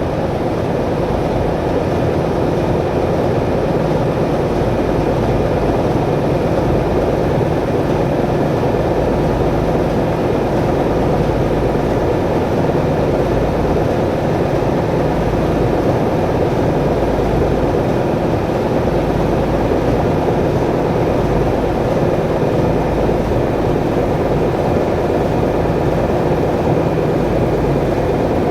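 A ship's engine and gearbox running steadily in the engine room: a loud, constant machinery drone with a steady hum, unchanging throughout.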